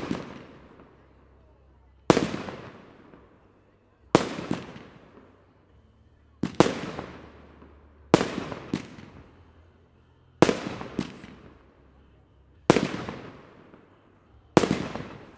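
Aerial fireworks bursting in a steady series: a sharp bang about every two seconds, several followed half a second later by a second bang, each fading away in a long echo.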